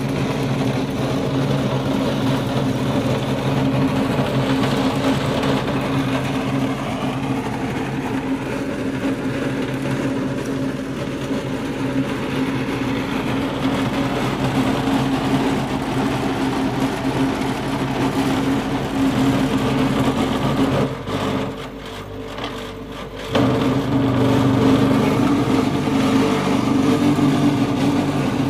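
Motor-driven vibrating table for precast concrete wall-panel moulds, running with a steady hum while it compacts wet concrete in the spring-mounted steel mould. The hum cuts out for about two seconds about three-quarters of the way through, then starts again.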